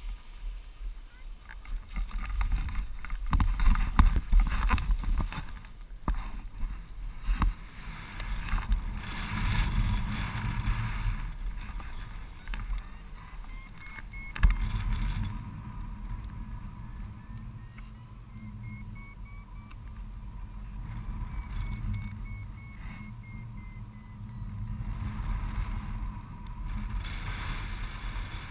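Wind rushing and buffeting over the microphone of a paraglider pilot's camera during launch and flight, loudest in the first several seconds. Through the middle, a variometer beeps faintly with a pitch that slowly rises and then falls.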